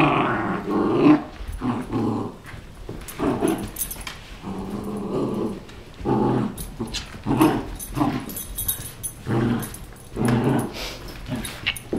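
Dogs play-growling in short repeated bursts, roughly one a second, while the two tussle over a toy.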